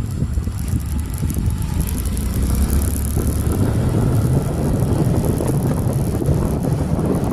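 Motorcycle engine running while riding along a street, with a steady wind rumble on the microphone.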